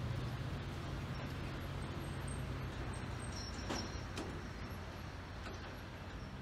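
Diesel locomotive engine idling with a steady low hum. A couple of faint clicks come a little past the middle.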